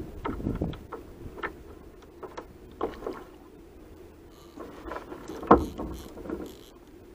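Irregular knocks and handling noises of gear and a person shifting on a fishing kayak, with one louder, sharp knock about five and a half seconds in.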